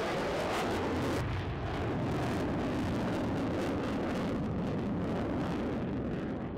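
Lockheed Martin F-35A Lightning II's jet engine at high power during a display pass: a loud, steady rumble with a ragged crackle, easing off slightly near the end.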